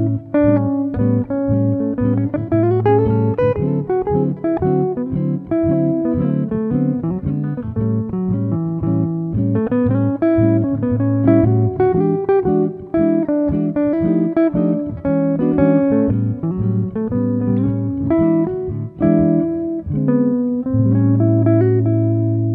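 Instrumental background music: a busy run of short plucked notes over a steady bass line.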